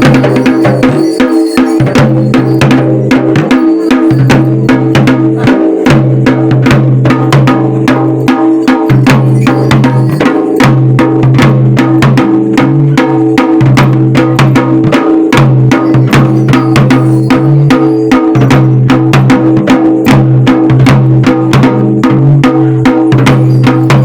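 Music driven by a fast, even drumbeat over sustained low tones, with no break.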